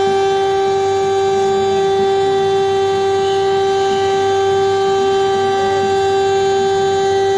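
Emergency alert siren holding one steady pitch, its tone rich in overtones, having wound up to pitch just before.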